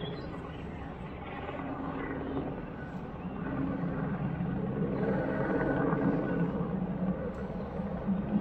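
Helicopter flying overhead carrying an underslung small tractor: a steady drone of engine and rotor that grows louder about halfway through.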